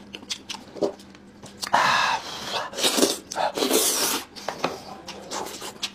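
Close-miked eating: wet slurping and sucking bursts with chewing clicks, coming irregularly several times over the few seconds.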